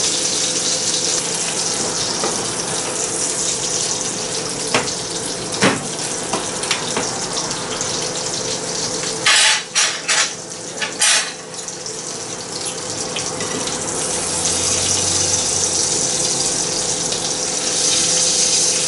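Brill fillet frying in butter in a frying pan: a steady sizzle, with a couple of sharp clicks and a short run of louder rasping noises about halfway through.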